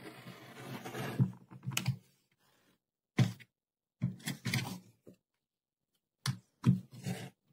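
Rotary cutter rolling along a quilting ruler, cutting through thick wool wadding on a cutting mat. It comes in short bursts of crunching and clicking, separated by pauses as the cutter and ruler are moved along.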